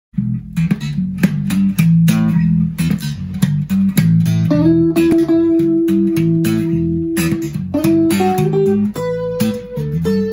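Electric guitar and electric bass playing together: a busy plucked bass line under a lead guitar. About four and a half seconds in the guitar slides up into a long held note, then climbs through a few notes to another held note near the end.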